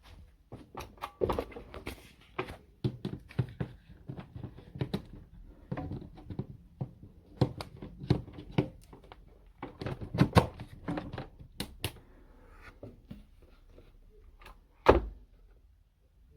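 A string of irregular knocks, clicks and rustles from things being handled, ending in one loud thump about fifteen seconds in.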